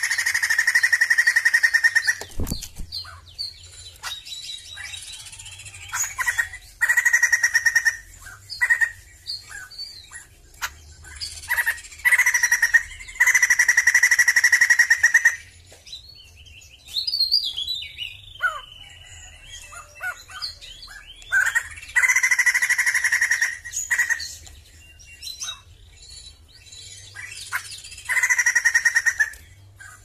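Sumatran laughingthrush singing: loud, rattling phrases of two to three seconds, repeated five times, with short chattering notes between them and a few gliding whistled notes about halfway through.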